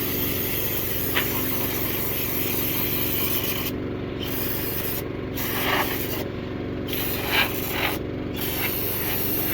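A steady mechanical hum with a scraping, rubbing noise over it, and a few short louder scrapes.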